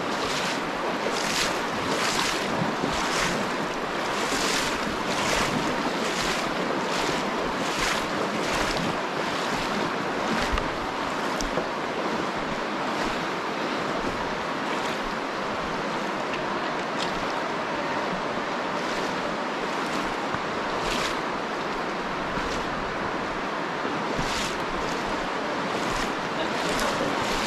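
Steady rush of a shallow river with splashes of feet wading through it, about two steps a second for the first ten seconds, then only now and then.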